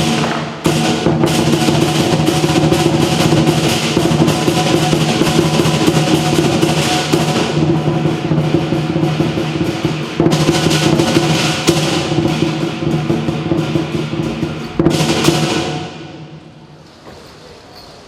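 Southern Chinese lion dance percussion: a big drum beaten in fast rolls under clashing cymbals and a ringing gong. It breaks briefly just after the start and again about ten seconds in, then dies down to a much lower level over the last two or three seconds.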